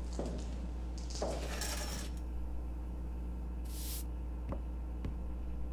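A steady low hum, with a few light scraping and clicking noises, a brief high hiss about two-thirds of the way in, and two sharp clicks near the end.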